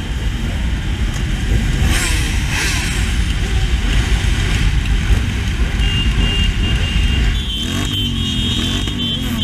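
A pack of motorcycles rumbling along at low speed, close together. Near the end one engine is revved up and down several times in quick succession, and a high steady tone joins about six seconds in.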